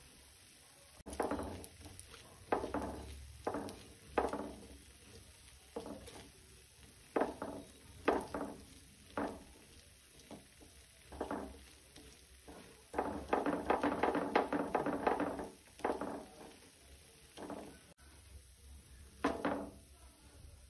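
A metal kitchen utensil knocking and scraping against metal cookware: a string of separate clinks, each with a short ring, then a longer stretch of continuous scraping about two-thirds of the way through.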